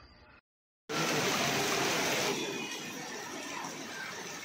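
Heavy rain pouring down, a steady rushing hiss that starts abruptly about a second in, louder for its first second and a half and then settling to a lower, even level.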